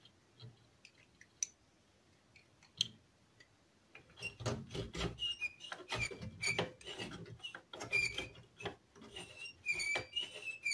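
Grundig 4040W radio's front-panel control mechanism squeaking as the knob is worked back and forth: a few faint clicks, then from about four seconds in a run of repeated high-pitched squeaks, metal rubbing on metal. The squeak persists even after contact spray.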